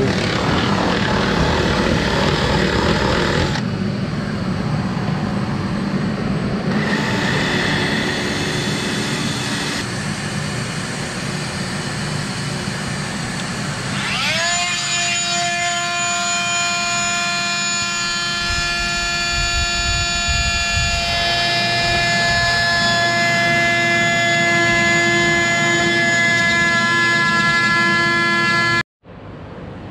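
A cordless drill boring through a boat's dash panel, in several short cut-together pieces. About halfway through, a Fein oscillating multi-tool spins up with a rising whine and runs with a steady high buzz as its round blade cuts out a display opening. The sound stops abruptly near the end.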